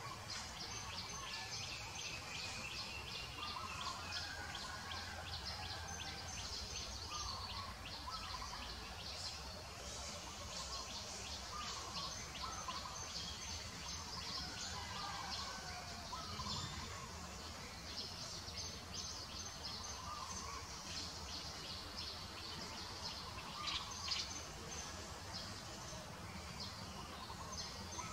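Forest ambience: birds chirping and calling over a rapid, high-pitched chirring that runs throughout, with a steady low background rumble.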